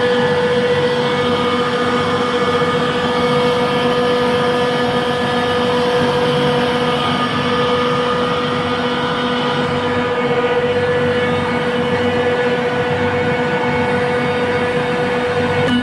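Trane chiller compressor running steadily and loudly: a continuous mechanical din over a dense noise, with a strong steady whine and several fainter tones above it.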